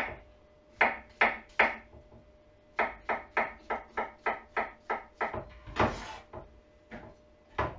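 Kitchen knife slicing brown champignon mushrooms on a wooden cutting board: sharp knocks of the blade on the board, three at first, then after a pause of about a second a quick run of about three a second, then a few more spaced out.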